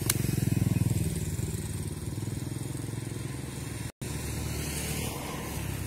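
Motorcycle engine running, louder for the first second or so and then steady, with the sound cutting out for an instant about four seconds in.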